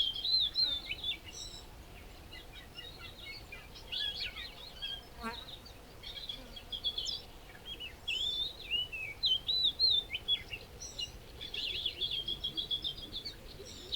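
Small birds chirping and calling: a busy run of short whistled notes that slide up and down, with a quick falling trill about five seconds in.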